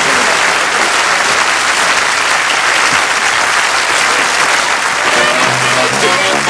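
Studio audience applauding steadily. About five and a half seconds in, band music with brass starts up over the clapping.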